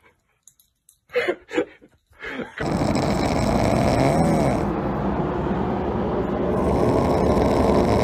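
A few brief short sounds, then from about two and a half seconds in a sleeping puppy snoring steadily, without a break.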